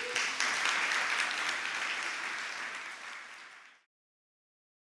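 Audience applauding, starting at once and fading, then cut off abruptly a little under four seconds in.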